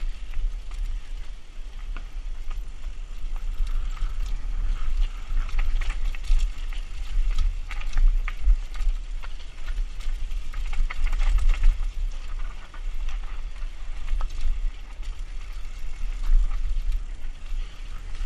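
Mountain bike descending a rocky dirt trail at speed: steady wind rumble on the microphone with the rattle of the bike and tyres over stones and roots, many short clicks and knocks throughout.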